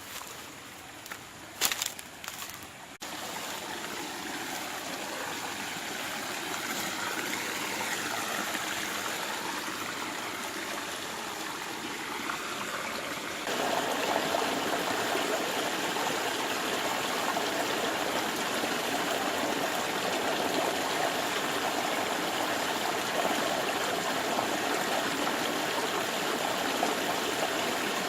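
Steady rush of flowing stream water, with a few short knocks in the first seconds; it grows louder about three seconds in and again about halfway through.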